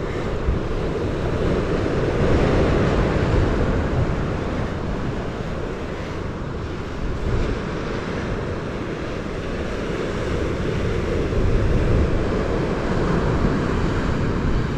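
Ocean surf washing and breaking, with wind buffeting the microphone; the wash swells twice.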